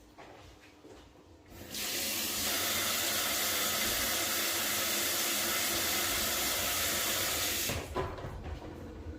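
Water running steadily for about six seconds, then shut off with a short knock.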